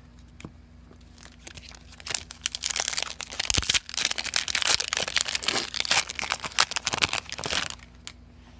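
Foil Pokémon trading card booster pack wrapper crinkling and tearing as it is ripped open by hand. The noise starts about two seconds in and stops shortly before the end.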